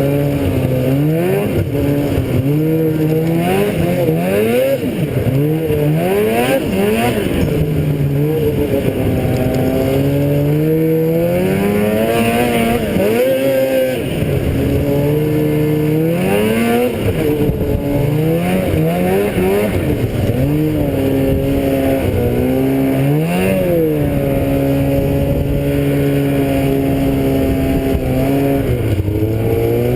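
Engine of the vehicle carrying the camera running while being driven, its pitch rising and falling repeatedly with changes in throttle and speed.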